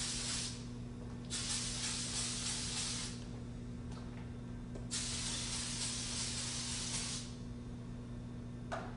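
Aerosol can of feminine deodorant spray, sprayed in long hisses: one already going that stops about half a second in, then two more of about two seconds each. A steady low hum runs underneath.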